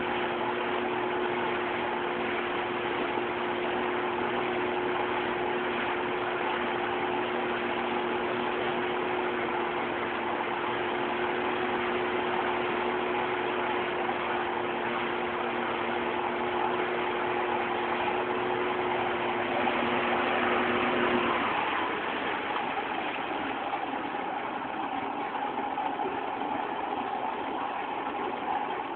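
Motorboat engine running at a steady speed. About twenty seconds in, its steady hum drops away after a brief rise in loudness, leaving a rougher rushing sound.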